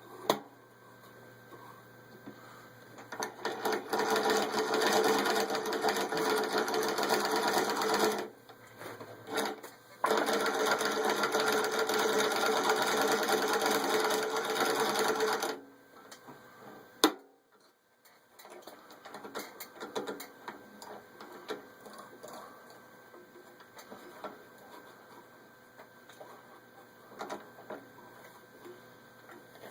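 Antique German child's hand-crank chain stitch sewing machine running, a fast, even clatter in two runs of about five seconds each with a short pause between. A sharp click follows, then faint scattered clicks.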